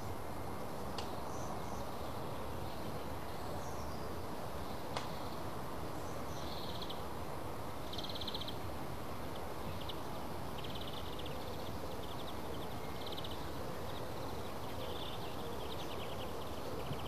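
Faint, short high chirping trills, like a small bird, repeating every second or so over a steady low hiss.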